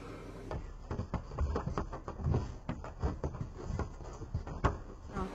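Young goats' hooves clattering irregularly on wooden planks: quick uneven taps with a few duller thuds.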